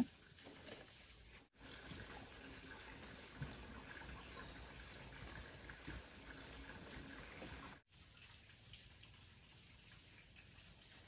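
Faint outdoor ambience with a steady high-pitched insect drone over a soft, even background hiss. The sound drops out abruptly twice, for a moment each time.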